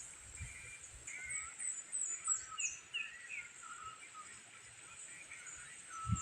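Several birds chirping and calling: many quick chirps, some high and falling in pitch, over a faint hiss.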